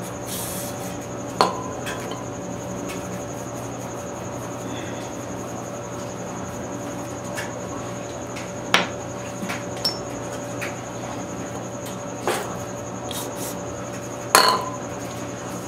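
A few sharp metal clinks, about four, spread out with a short ring after each, the last near the end the loudest: metal tools or engine parts being handled and set down. They sit over a steady background hum.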